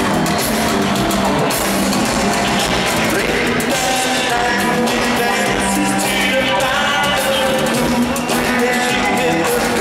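Live rock band playing through an arena sound system, heard from among the audience: electric bass guitar and drums with a male lead vocal singing into a microphone.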